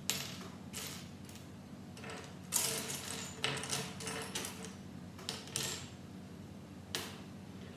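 Small plastic Lego pieces clicking and clattering against each other as loose bricks are sorted through by hand, in a string of short irregular rattles with the loudest burst about two and a half seconds in.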